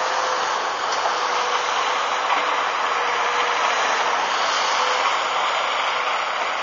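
Volvo EC290BLC tracked excavator's diesel engine running steadily as the machine lifts and swings a full bucket of soil over to a truck, with a steady hum in it.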